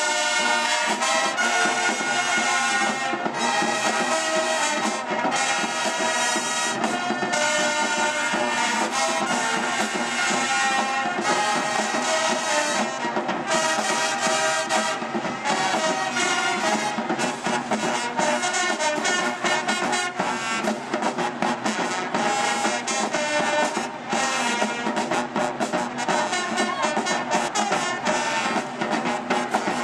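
A brass band playing, with loud, continuous brass notes.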